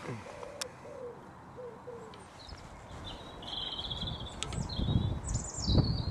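A pigeon cooing in a run of short notes, then a small songbird chirping in quick high notes. From about two and a half seconds in, a low rumbling noise builds and is loudest near the end.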